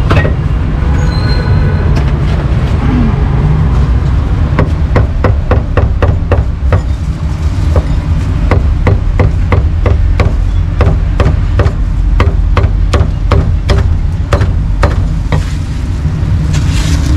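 Meat cleaver chopping pork on a wooden block in rapid, even strokes, about four a second. The chopping starts about four seconds in and stops near the end, over a steady low rumble.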